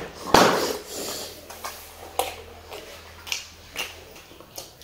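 Eating by hand from steel plates: scattered short smacks and light clicks of chewing and of fingers working rice and food against the plates, with a louder sound just after the start.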